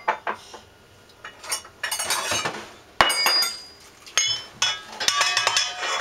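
Metal measuring cup clinking and tapping against the stainless steel bowl of a stand mixer, each knock leaving a short metallic ring. A loud knock comes about three seconds in, and a quick run of clinks fills the last two seconds.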